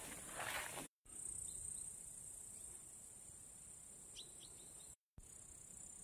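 Faint, steady, high-pitched chirping of grasshoppers, which drops out briefly twice. A few faint short chirps come about four seconds in.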